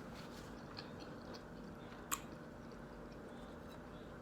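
Close-miked chewing of a breakfast sandwich: faint wet mouth sounds with scattered small clicks, and one sharper click about two seconds in.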